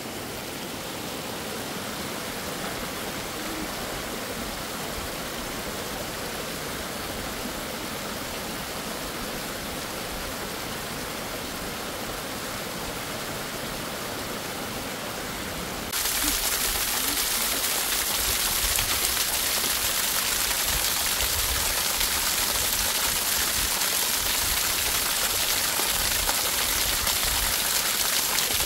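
Small mountain stream of water running and splashing over rocks, a steady rushing hiss that jumps suddenly louder and brighter about halfway through, as the water pouring off a boulder comes close.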